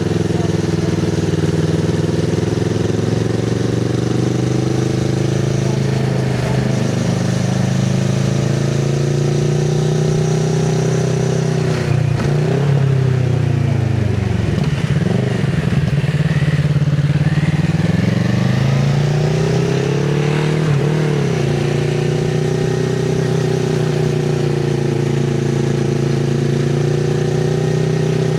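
A 2024 Kawasaki Z650RS's 649 cc parallel-twin engine, breathing through an IXIL MK2 full exhaust with its dB killer fitted, running at a steady pace. About twelve seconds in the revs fall away and swing down and up a few times, then rise back to a steady pitch.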